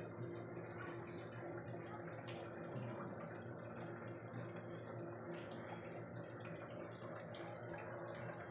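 Steady low hum with a hiss over it.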